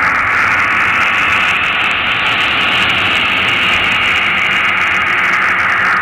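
Loud, steady hissing noise from the dance piece's soundtrack, swelling brighter through the middle and easing back near the end.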